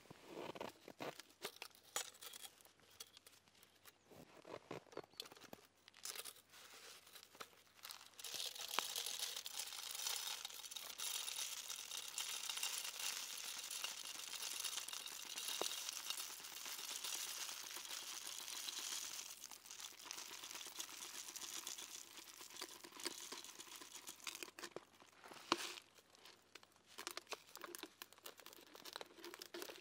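Sunflower seeds being poured from a plastic bottle into a plastic tube bird feeder: a steady rush of seeds for about ten seconds, starting some eight seconds in. Around it, gloves and jacket sleeves rustle and the feeder's plastic parts click as it is handled.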